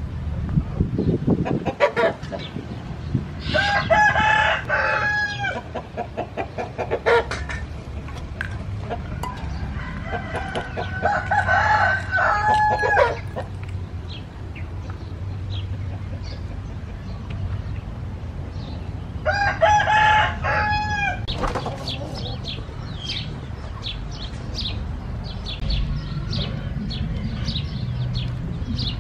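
A rooster crowing three times, each crow about two seconds long and several seconds apart. Short high ticks sound faintly in the later part.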